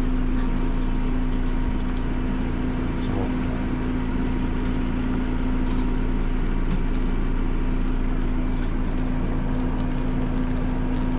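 A motor running with a steady, even hum and a fixed low tone, with faint scattered clicks over it.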